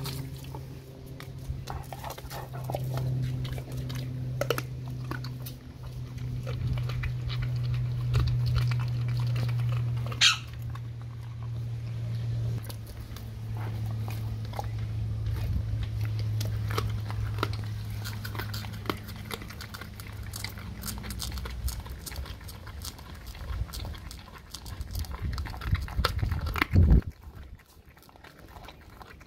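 A dog chewing a raw gilt-head bream, with wet crunching clicks throughout. Under the chewing a low, steady growl runs for most of the time, breaking off briefly twice and fading out before the end. A short high squeak comes about a third of the way through, and a loud knock comes near the end.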